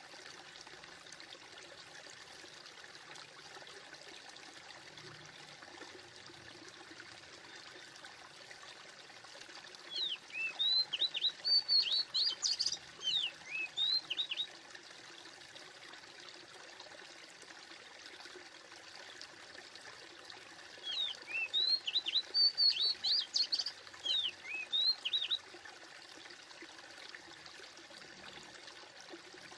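Steady running water like a flowing stream, with a songbird singing twice, each time a phrase of quick high chirps about four seconds long, the two phrases about ten seconds apart and much alike.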